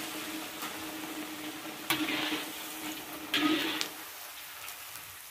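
Battered tempeh slices deep-frying in hot oil in a wok: a steady sizzle, with two brief louder bursts about two and three and a half seconds in as a metal spatula moves the pieces in the pan.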